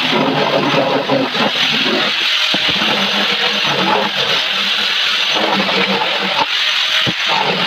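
Electric hand sander running steadily against the puttied wooden panels of a speaker box, sanding down the dried filler before painting.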